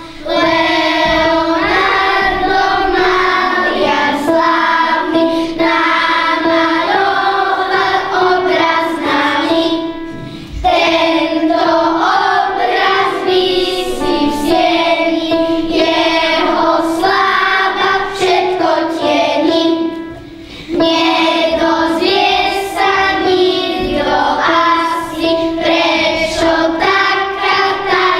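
A group of children singing a song together, with two short pauses between phrases, about ten and twenty seconds in.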